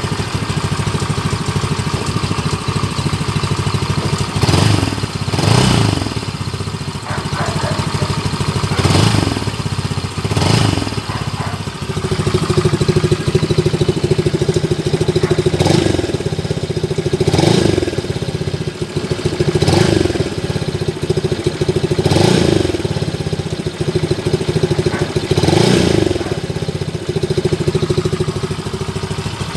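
RUSI Pulse 150 motorcycle's 150 cc fuel-injected engine idling, blipped in short throttle revs about nine times, every few seconds.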